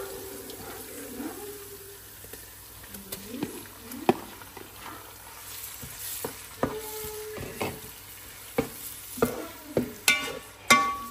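Wooden spoon stirring onions frying in a pot, with a faint sizzle and repeated knocks of the spoon against the pot. Partway through, blended red pepper goes in, and the knocks come faster and louder near the end.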